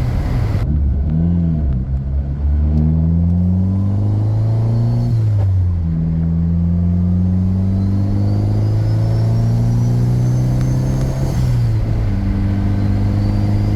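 Turbocharged Honda car engine pulling hard through the gears, its pitch climbing steadily and then dropping at upshifts about five and a half and eleven and a half seconds in. A faint high whine rises along with the engine during the second pull.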